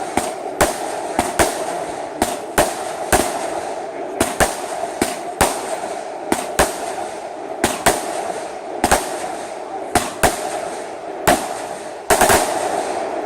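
Fireworks going off: a steady hiss broken by sharp cracks about once or twice a second, with a louder cluster of cracks near the end.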